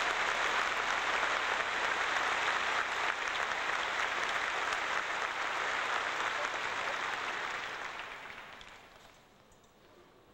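Audience applauding steadily, then dying away about eight or nine seconds in.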